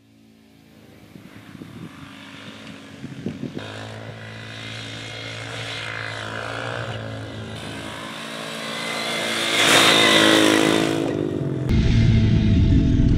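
Small youth ATV engine revving up and down, loudest as it passes close about ten seconds in. Near the end the sound jumps to a close, rougher engine note picked up by a camera on the quad's handlebars.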